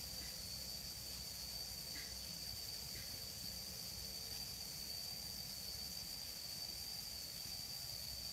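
A steady high-pitched insect trill over a faint hiss.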